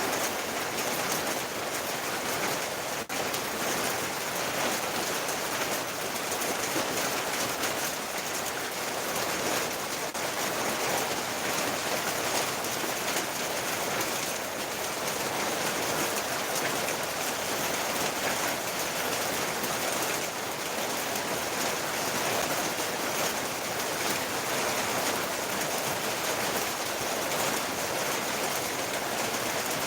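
Steady rain falling, an even hiss that barely changes.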